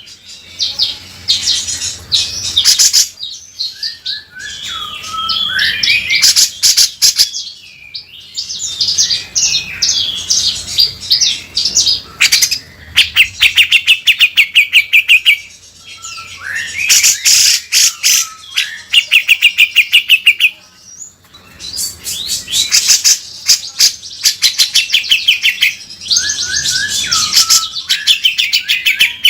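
Grey-cheeked bulbul (cucak jenggot) singing loudly in repeated bursts. Its phrases mix rapid, harsh rattling trills with short gliding whistles, with brief pauses between bursts.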